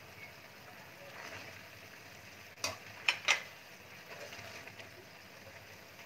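Chicken leg quarters simmering in a shallow pan of marinade liquid, a faint steady sizzle. Three sharp metal clinks come about halfway through as metal tongs grip and turn the chicken against the pan.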